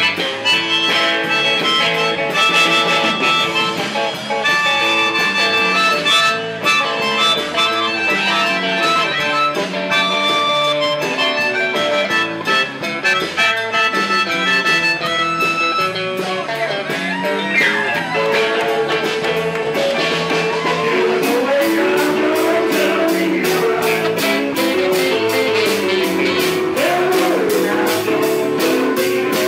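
Live blues band with a melodica playing a solo of held reedy notes over guitar and drums. In the last third, electric guitar bends come forward over a steady cymbal beat.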